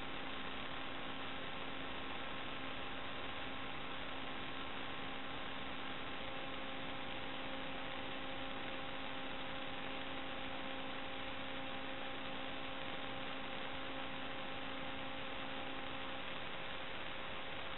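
Steady electronic hiss with several faint, steady hum tones, one more tone joining about six seconds in: noise on the video recorder's audio line.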